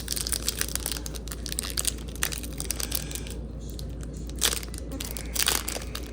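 Trading card pack wrapper crinkling and being torn open, a dense run of crackles with a couple of louder rips about four and a half and five and a half seconds in.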